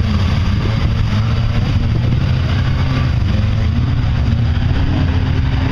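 Lifted pickup truck's engine revving hard while it churns through a mud bog, a loud, steady rumble whose pitch wavers up and down from about three seconds in.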